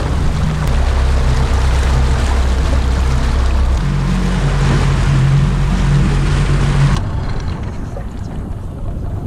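Boat motor running under way, with wind rushing over the microphone and water noise. Its low note shifts about four seconds in, and the rush drops off sharply about seven seconds in.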